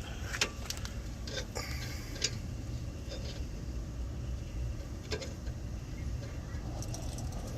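Irregular metallic clicks and clinks of a socket wrench and extension being fitted and worked on a brake caliper bolt, over a low steady hum.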